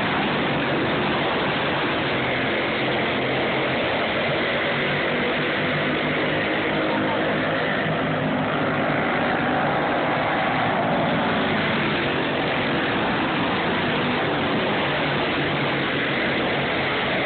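Several racing go-kart engines running at speed together, a steady continuous drone with pitch that shifts as the karts lap past.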